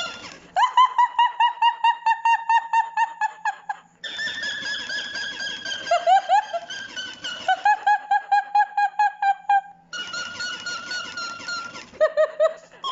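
Pet duck calling in long runs of quick, high-pitched pulses, about eight a second, in three main runs with short breaks between them. The owner takes the calls for the duck copying their coughing.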